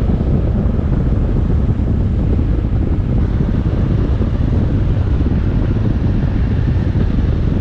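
Motorcycle being ridden at road speed: steady wind noise on the microphone with the engine running underneath, heaviest in the low end.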